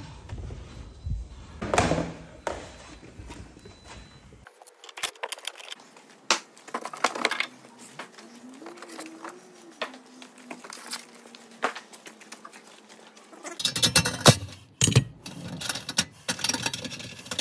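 Scattered clicks, knocks and rattles of hands unclipping and handling plastic trunk trim and fittings in a Toyota Camry Hybrid. The clatter is loudest near the end.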